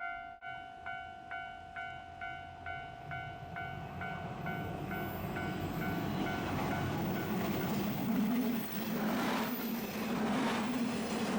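Japanese level-crossing alarm bell ringing in a fast, even beat of about two dings a second. From about midway it is drowned by a Dosan Line diesel train approaching and passing, a growing rumble with a low drone and repeated heavy clatter of wheels over the rails.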